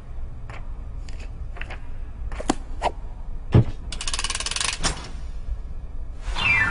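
Light paper taps and clicks from an animated book beside the sleeper, then a quick flutter of pages lasting about a second, a little past the middle. Soft orchestral music begins near the end.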